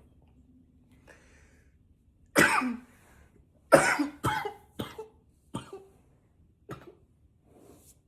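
A man coughing intensely: one hard cough about two seconds in, then a run of about five more coughs in quick succession, the first of the run the loudest and the rest growing weaker.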